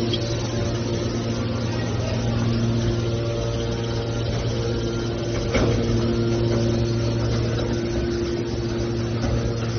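Hydraulic scrap metal baling press running with a steady hum from its motor and pump, with a single knock about halfway through.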